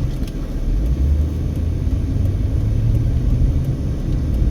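Low, steady engine and road rumble of a car heard from inside the cabin as it drives through a left turn.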